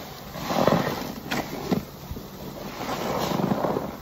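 A foam-soaked perforated car wash sponge squeezed by gloved hands over a basin of detergent suds: wet squelching and crackling foam in two long squeezes, with a few sharp pops between them.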